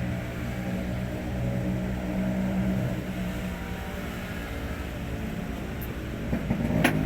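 Hino 500 truck's diesel engine running steadily, with a sharp click near the end.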